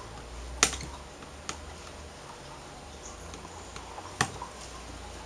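A few light clicks, the loudest about half a second in and another near four seconds, as the plexiglass light-guide panel of an LCD backlight is worked loose at its corner against the metal frame, over a low steady hum.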